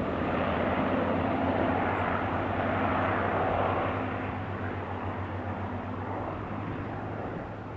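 Formation of Hawker Hurricane fighters passing overhead, the steady drone of their Rolls-Royce Merlin V12 engines loudest about three seconds in, then fading away.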